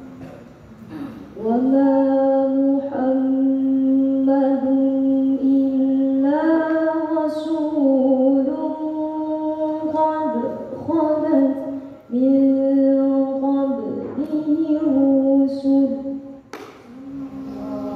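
A young female voice reciting the Quran in the melodic tilawah style into a microphone, unaccompanied. Long held notes slide slowly up and down in pitch, broken by short pauses for breath.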